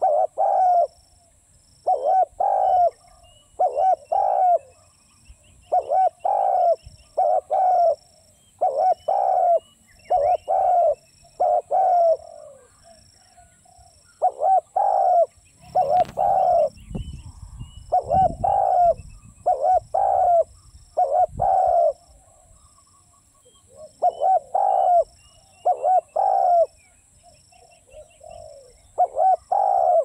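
Spotted dove cooing: short phrases of two or three low coos, repeated over and over with brief pauses between them.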